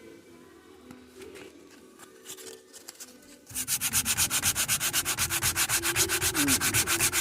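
Sanding on a steering wheel repair: quick, even strokes, about eight a second, that start about three and a half seconds in. Before that there are quieter, irregular rubbing and handling sounds.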